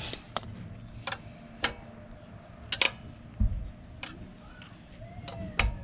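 Irregular sharp metallic clicks and taps, about seven in all, with a couple of low thumps: hand tools and hardware handled while working on a motorcycle's chain and rear axle adjusters.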